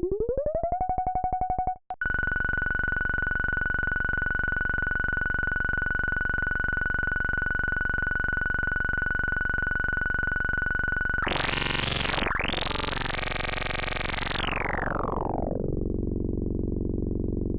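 u-he Bazille software synthesizer playing a drone patch, a sine wave fractalized with a saw and pulse-modulated. The tone glides up in pitch over the first second and cuts out briefly about two seconds in. It then holds as a steady buzzing drone with a high whistling tone until about eleven seconds in, sweeps up bright and harsh, and falls back to a lower buzzing drone near the end.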